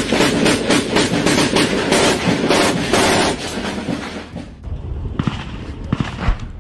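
Rapid automatic gunfire, about four shots a second, for roughly three and a half seconds. After a break, a few separate single shots.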